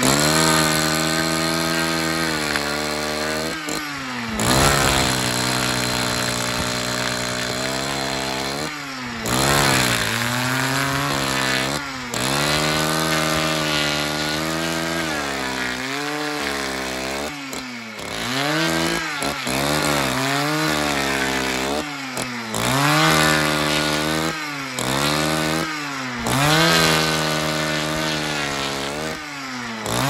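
Two-stroke chainsaw running at high speed while cutting into larch wood. The engine pitch sags each time the chain bites in and climbs again as it frees up, many times over, with a few brief breaks.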